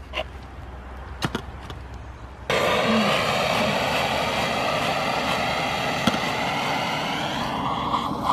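Handheld gas torch lit about two and a half seconds in: its flame starts suddenly and runs as a loud, steady hiss, held to a beekeeper's smoker to light damp wood pellets. A few sharp clicks come before it.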